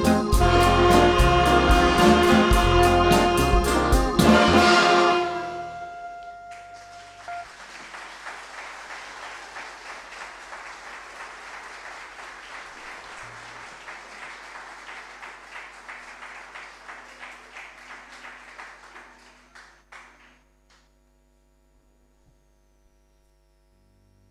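A wind band with trumpets and trombones plays the last bars of a piece, closing on a held chord about five seconds in. Audience applause follows for about thirteen seconds and dies away, leaving a quiet hall with a faint hum.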